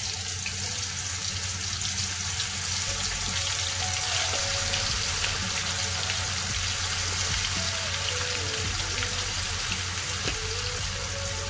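Marinated chicken pieces frying in hot coconut oil in an iron kadai, a steady dense sizzle as the pieces are dropped into the oil.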